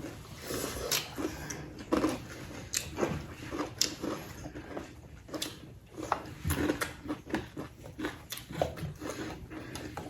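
Close-up mouth sounds of eating spicy chicken: irregular chewing, biting and wet smacking, a few sharp clicks every second or so.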